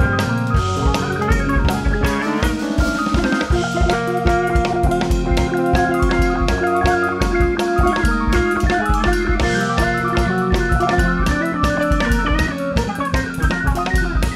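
Jazz trio playing: an electric bass line under piano chords, with a busy drum kit throughout.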